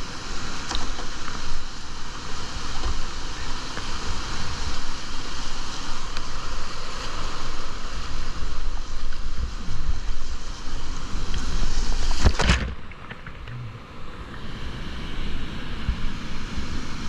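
Whitewater rapid rushing, with wind buffeting the microphone. About twelve seconds in there is a loud burst of noise, after which the rush is quieter.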